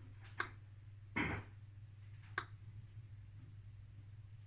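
Geiger counter giving sparse single background clicks, about two seconds apart, over a steady low hum. The glowing X-ray tube at 6 kV is not raising the count. A short, louder noise comes a little over a second in.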